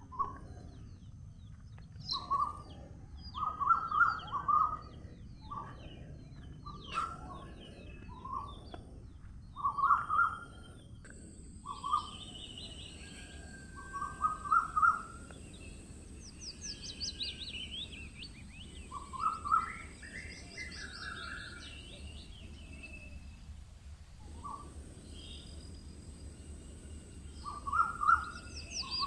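Several birds singing and calling: short repeated low-pitched phrases every second or two, with higher, fast trills of falling notes from other birds. A steady low rumble runs underneath, and a thin steady high hiss joins about a third of the way in.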